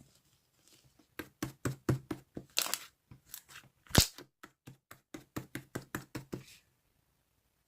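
Mango slush slime being pressed and squished by hand, giving a quick run of sharp popping clicks with a single loudest pop about four seconds in.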